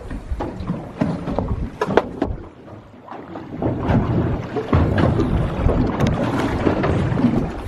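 Wind buffeting the microphone on a small boat in choppy sea, with water splashing and knocking against the hull; the wind eases briefly about three seconds in.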